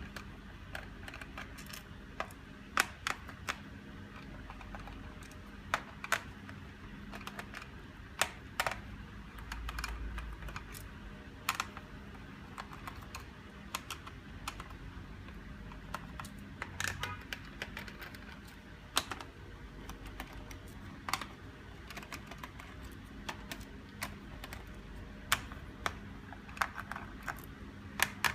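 Irregular sharp clicks and light taps of hands and small tools working on a laptop's plastic casing, a few much louder than the rest, over a faint steady low hum.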